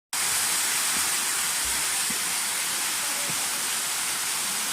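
Steady, even hiss of rushing water from a waterfall.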